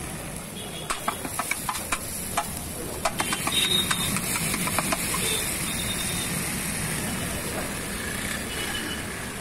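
A metal spatula clinking and scraping on a large flat iron tawa (griddle) as masala sizzles on it. There is a run of sharp clicks for the first few seconds, then a steady sizzling hiss.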